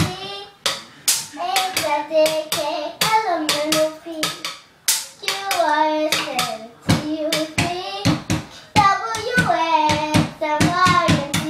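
A child singing over drumsticks beating on the top of a small wooden nightstand used as a drum, a run of sharp wooden knocks.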